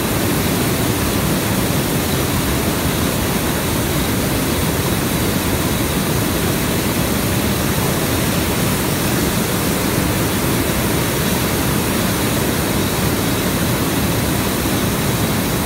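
Hot-air balloon's propane burner firing in one long, steady blast of rushing noise.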